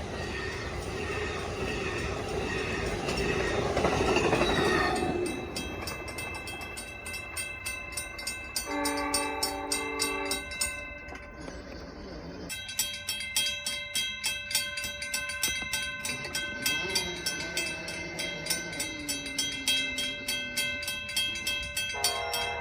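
Amtrak passenger train passing a grade crossing: a loud rush of wheels and cars for the first few seconds, easing to a steady clicking of wheels over the rail joints about twice a second. The locomotive's multi-chime air horn sounds a short chord blast about nine seconds in, and again near the end.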